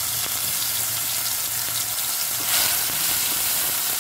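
Chopped onion and tomato sizzling as they fry in a spoonful of hot oil in a nonstick pan, with a wooden spatula stirring them. The sizzle flares louder about two and a half seconds in.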